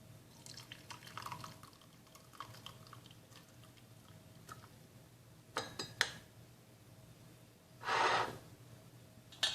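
Boiled herbal infusion being strained into a cup: liquid dripping and trickling, a few light clinks about six seconds in, and a short louder rush of pouring liquid about eight seconds in.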